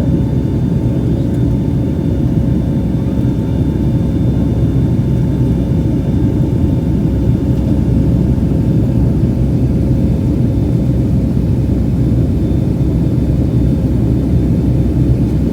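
Boeing 757-300 jet engines running, a steady rumble with faint steady whining tones over it.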